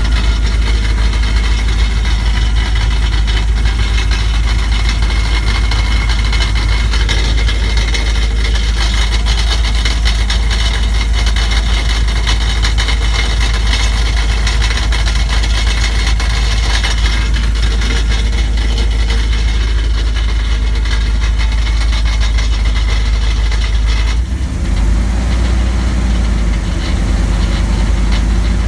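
Dodge Ram 1500's 5.2-litre V8 idling with a steady, rapid knocking noise. The low rumble shifts about 24 seconds in.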